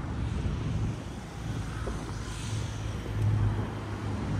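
Steady low engine rumble in city background noise, with a faint hiss passing through about halfway.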